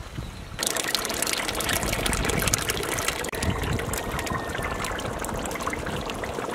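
Thick yogurt poured from a steel plate into a large pot of hot chicken curry: a steady, wet pouring and splattering that starts about half a second in and keeps going.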